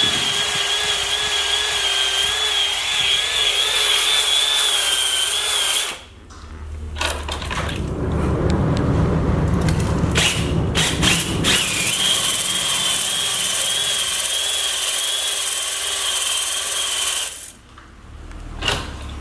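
Electric drill spinning a cylinder hone (glaze breaker) inside an engine's cylinder bores, giving a steady whine. It runs for about six seconds, stops, and runs again for about six seconds.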